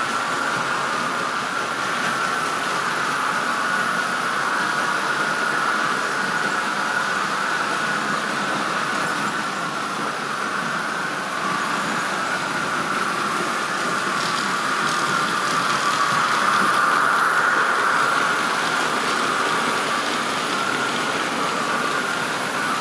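Märklin E41 model electric locomotive with its mfx sound decoder running: a steady hum whose tone slowly swells and eases.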